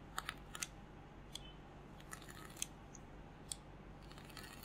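About eight faint, light clicks and taps of small metal vape parts being handled, as the top cap of a Guillotine RDA is taken off a Wismec Luxotic MF box mod.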